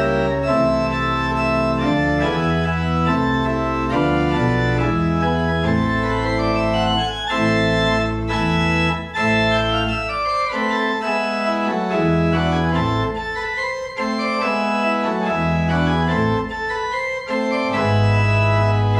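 Organ playing the closing postlude of a church service: sustained chords over a bass line that moves from note to note.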